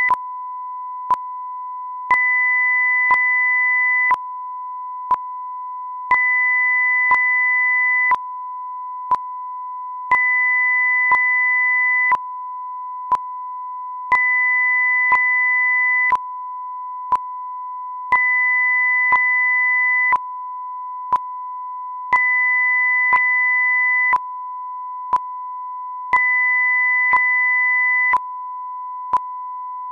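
Synthetic audio-video sync test signal: a steady pure test tone runs throughout, while a second tone an octave higher switches on for two seconds and off for two seconds, and a short sharp click marks every second.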